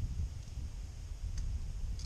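Wind buffeting the microphone as an uneven low rumble, with a single faint click about a second and a half in.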